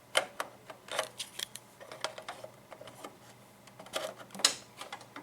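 Irregular clicks and plastic taps of a CompactFlash card being handled and pushed into a desktop PC's front card reader, the loudest knock about four and a half seconds in.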